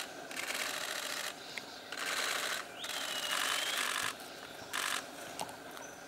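Camera shutters firing in rapid continuous bursts, about four bursts of a half-second to over a second each, starting and stopping abruptly.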